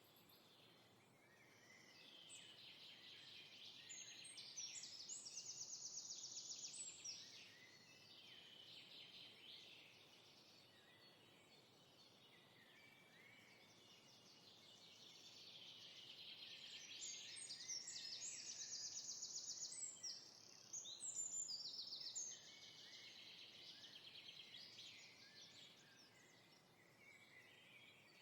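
Faint songbird chorus: many birds chirping and singing quick trills, swelling louder twice.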